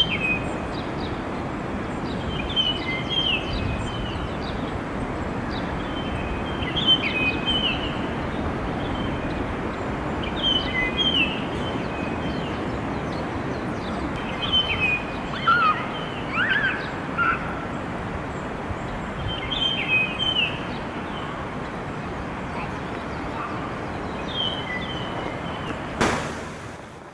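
Japanese grosbeak singing its clear whistled 'kii-koo-kii' song, a short phrase of a few pure notes repeated every four seconds or so, over a steady background rumble of outdoor noise. A click sounds near the end.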